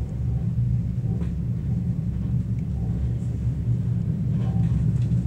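Suburban passenger train running steadily, heard from inside the carriage as a low rumble. A few faint clicks from the wheels and track come through, about a second in and again near the end.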